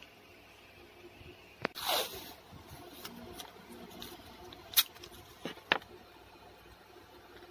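Hands handling paper and washi tape close to the microphone: a short rustling swish about two seconds in, then a few sharp taps or clicks, the loudest in the second half.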